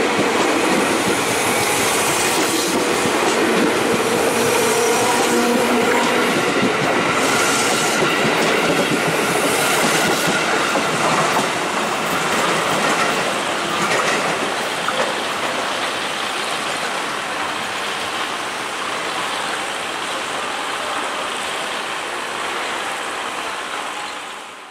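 JR 205 Series electric commuter train running close past, its wheels clattering over the rail joints and points, with thin squealing tones over the rumble. It eases a little about halfway through and fades out at the end.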